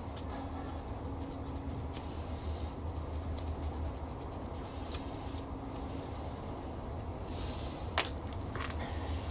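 Small clicks and light scratching from small hand tools working and handling plastic model kit parts, with a sharper tap about eight seconds in, over a steady low hum.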